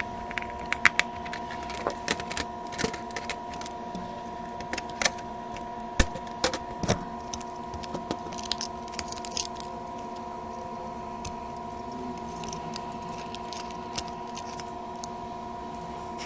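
Irregular small clicks, taps and rattles of parts and tools being handled on a repair bench, over a steady electrical hum made of a few fixed tones.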